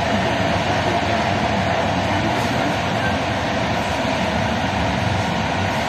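Passenger train running along the line: a steady rumble of wheels on the rails.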